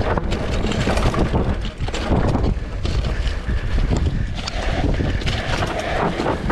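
Mountain bike descending a dry dirt trail: wind buffeting the GoPro's microphone over a steady tyre rumble, with frequent short clattering knocks as the bike goes over rough ground.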